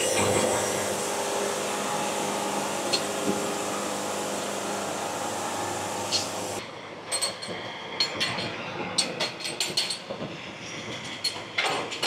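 Wood-Mizer LT70 Wide band sawmill running as its blade cuts through a board. About six and a half seconds in the cut ends and the saw noise drops away, followed by a run of sharp knocks and clatters.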